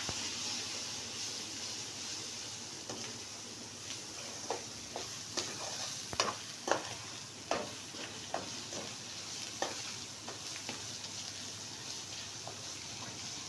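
Ginger paste and turmeric sizzling as they fry in hot oil in a pan, with a spoon stirring and knocking against the pan in irregular clicks, busiest through the middle.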